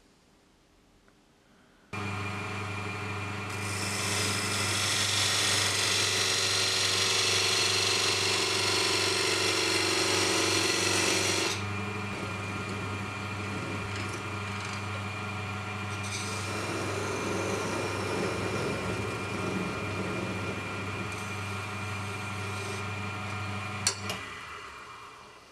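A small lathe's motor starts with a steady hum, and a thin knife-style parting tool scrapes and hisses as it cuts into a spinning wooden spindle. The cutting is loudest for about eight seconds, then lighter. A sharp click comes near the end, and the lathe then winds down.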